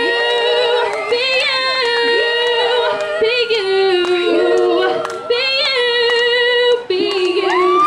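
Female vocal group singing a cappella in harmony into microphones, holding long notes together and moving to a new chord about every second.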